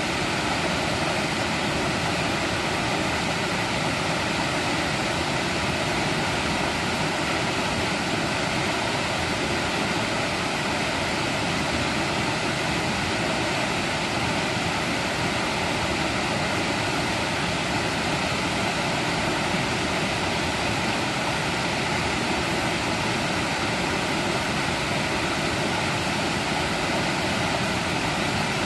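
Mountain valley stream flowing over rocks, a steady, even rush of water.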